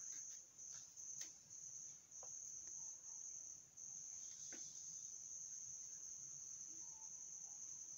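Faint, steady high-pitched insect trill that runs in long stretches with brief breaks. Two soft clicks come about a second in and near the middle.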